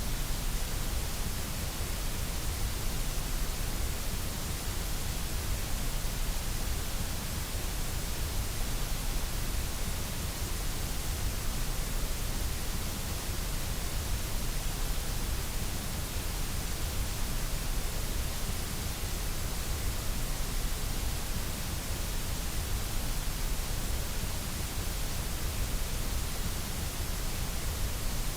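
Steady synthetic white noise: an even, unbroken hiss that stays at one level throughout.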